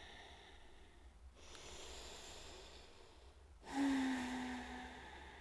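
A woman's deep breathing close to the microphone: a long, soft breath drawn in from about a second and a half in, then a louder exhale with a low hum of voice, like a sigh, falling slightly in pitch.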